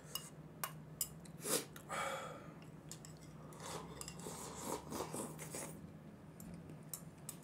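Chopsticks clicking against a porcelain bowl as Jjapagetti noodles are shoveled from the bowl held at the mouth, with soft slurping and chewing between the clicks.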